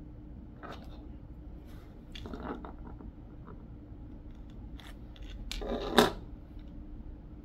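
Plastic Lego pieces and minifigures being handled: light rubbing, scraping and small clicks, with a louder rustle that builds to a sharp click about six seconds in.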